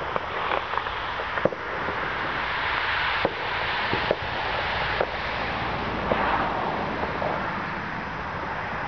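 Distant New Year's Eve fireworks: about a dozen scattered firecracker and rocket bangs at uneven intervals, over a steady hiss.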